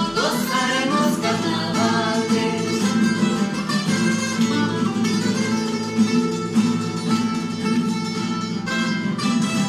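A carnaval tune played on mandolin and acoustic guitars, steady and continuous.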